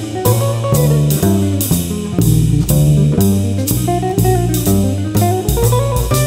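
Live jazz trio: a hollow-body electric guitar plays a melodic line over upright bass and drum kit, with a steady cymbal beat keeping time.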